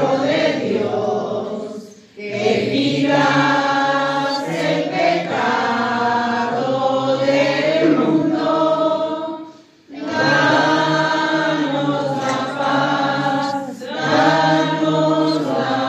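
Voices singing a slow church chant during Mass, in long held phrases with short pauses about two, ten and fourteen seconds in.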